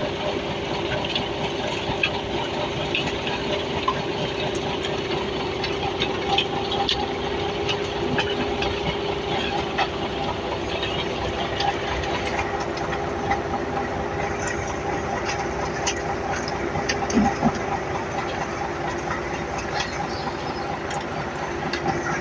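A large diesel engine of heavy machinery running steadily, with scattered light metallic clicks.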